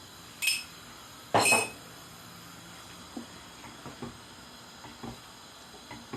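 Metal utensil clinking against a cooking pot: two ringing clinks early on, the second louder, then a few faint light taps.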